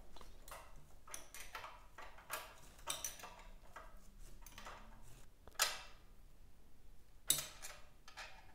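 Light clinks and taps of metal parts being handled as a clutch band-brake assembly and its steel bracket are fitted to a small engine. The sharpest taps come a little past halfway and again near the end.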